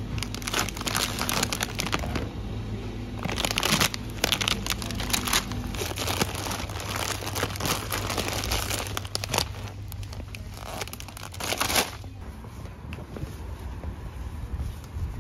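Plastic food packaging crinkling and rustling in irregular bursts as it is handled, stopping about twelve seconds in. A low steady hum sits underneath for the first few seconds.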